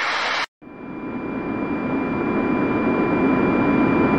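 Jet aircraft engine noise. An airliner's engines run for about half a second, then there is a brief cut. After it, jet engine noise with a steady high whine grows steadily louder as the aircraft approaches.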